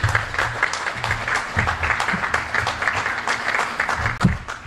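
Audience applauding: many people clapping steadily, dying away near the end.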